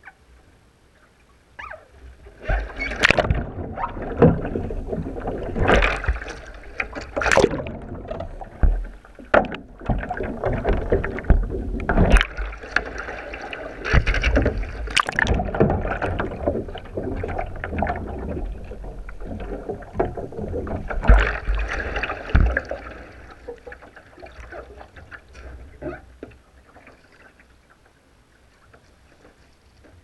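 Water splashing and churning as a sea kayak capsizes and the paddler sweeps the paddle to roll back up in a butterfly roll. The sound is partly heard with the bow-mounted camera underwater. It starts a couple of seconds in with repeated sharp splashes and bubbling, then dies down to faint lapping water for the last several seconds once the kayak is upright.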